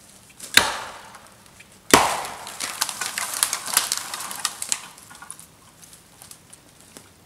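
Dry deadwood snapping: two sharp cracks, the second louder, followed by a couple of seconds of crackling and splintering twigs that fades away.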